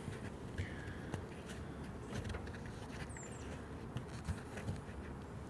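Faint outdoor background with a few light clicks and taps of handling at the hive, and one short, high chirp about three seconds in.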